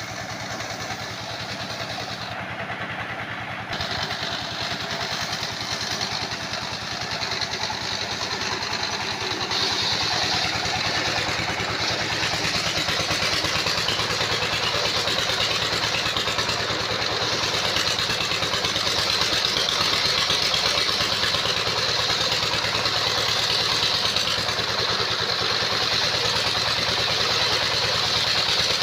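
Engine-driven sawmill running steadily, with a high whine that grows louder about ten seconds in.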